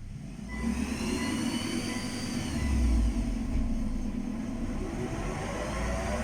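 Wheel hub bearing of an all-wheel-drive car humming as the wheel is driven in gear with the engine running: a low drone that sets in about half a second in, rises in pitch, falls back around the middle and climbs again near the end. The hum is the sign of a dead hub bearing.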